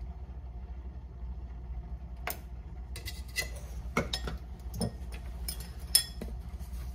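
A metal spoon clinking and scraping against a glass bowl as thick sesame dressing is spooned into it: a run of light clicks, with the sharpest clink near the end as the spoon is set down in the bowl.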